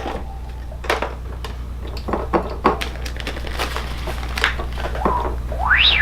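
Clicks and knocks from handling a keyboard and its cables during a repair test, over a steady low hum. Near the end an electronic tone sweeps up and back down as the keyboard starts sounding through an amp.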